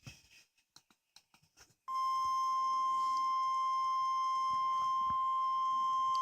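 NOAA Weather Radio warning alert tone at 1050 Hz: one steady, unbroken high beep that starts abruptly about two seconds in, after a few faint clicks, and holds at an even level.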